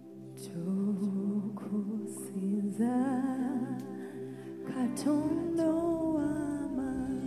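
A woman sings a Luganda worship song into a microphone over sustained backing chords, her voice starting softly and growing stronger. A low bass note joins about five seconds in.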